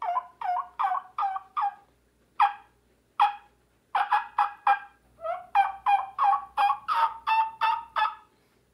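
A man's natural voice imitating a turkey call on an inhaled breath, hand cupped over the mouth, done in his low register. It comes as runs of short notes, about three a second, each dropping in pitch, with a faster, more continuous run over the last three seconds.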